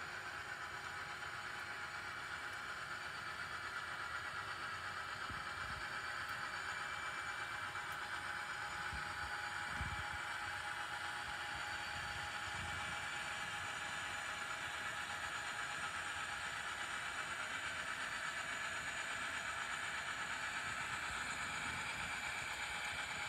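ScaleTrains Rio Grande SD40T-2 model diesel locomotives pulling a freight train along the layout track, with a steady engine-like running sound. A few soft low thumps come in the middle.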